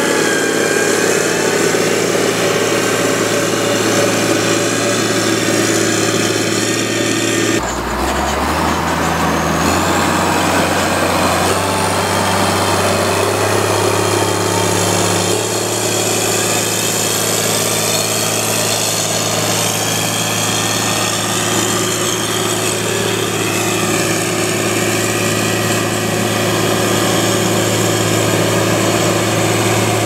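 Dresser 850 motor grader's diesel engine running steadily under load as its blade pushes and spreads clay. The engine note changes abruptly about eight seconds in and again around fifteen seconds.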